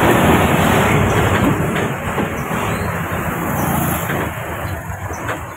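Heavy tronton truck's diesel engine running steadily with a low hum, getting quieter over the last couple of seconds.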